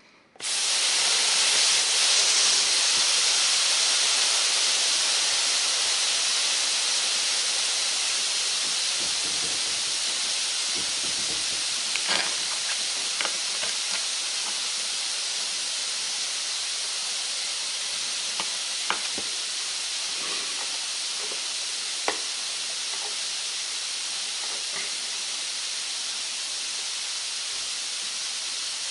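Steady steam hiss from a hot carpet seaming iron resting on a towel over Berber carpet, steaming the carpet to flatten it. It starts abruptly about half a second in and slowly fades, with a few faint clicks.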